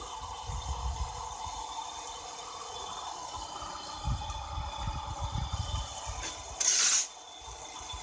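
Homemade motorized sand sieve running, its round screen shaking sand through onto the pile below, with a steady hum over an uneven low rumble. About three-quarters of the way through, a short loud hiss rises over it for about half a second.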